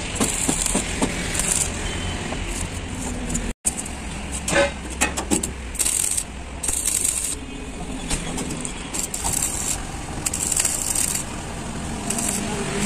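Stick (arc) welding on steel sheet: the arc crackles and hisses in irregular bursts of about half a second to a second, with short gaps between them, over a steady low hum. The sound cuts out completely for an instant about three and a half seconds in.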